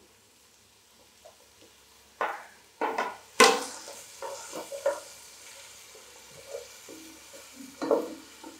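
Spatula stirring and scraping vegetables in a hot frying pan, with sizzling oil. A run of sharp scrapes and knocks comes from about two seconds in, the loudest about three and a half seconds in, and another near the end.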